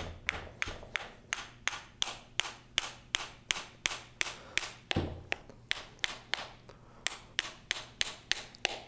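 Rapid, evenly spaced sharp taps, about three a second, from a hand tool worked against the metal body of a Graco E-10 displacement pump as its lower half is taken apart.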